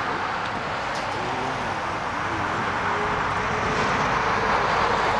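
Airbus A330-300's Rolls-Royce Trent 700 turbofans at takeoff thrust as the airliner accelerates down the runway: a steady jet roar that grows a little louder in the second half, with a faint rising whine underneath.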